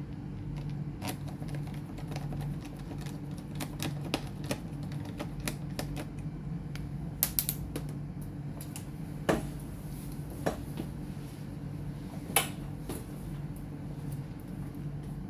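Irregular small clicks and taps from hands and tools working on a laptop's plastic case and internal parts, with a few sharper clicks midway, over a steady low hum.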